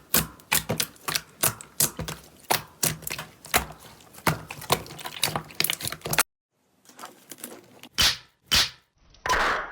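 Slime being squeezed and poked by hand, giving a quick run of sharp clicks and pops, about three or four a second. It cuts off about six seconds in, followed by two separate snaps and a short burst of crackling near the end.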